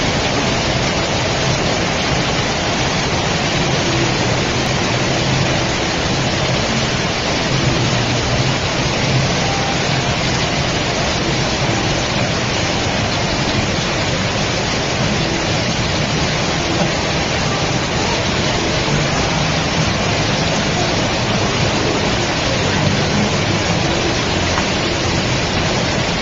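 Heavy rain from a tropical storm pouring steadily: a dense, even hiss with no pauses.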